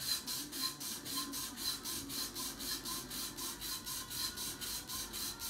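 Sandpaper held in the fingers rasping against a pool cue's ferrule and new tip as the shaft is spun back and forth, in an even rhythm of about four to five strokes a second. This is hand sanding to bring the newly glued tip flush with the ferrule.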